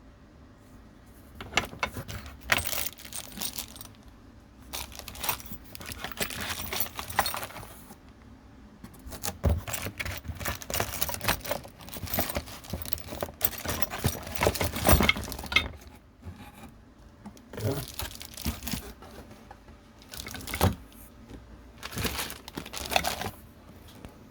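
Metal parts of an angle-grinder chainsaw attachment being handled: irregular bursts of clinking and rattling, separated by short pauses. No motor is running.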